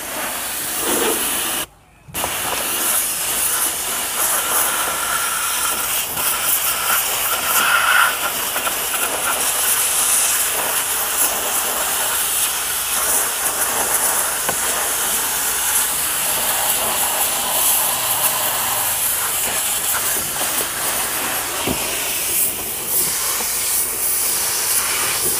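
Car-wash machine's spray gun jetting water and mist onto a tyre and wheel arch: a steady hiss that breaks off briefly about two seconds in.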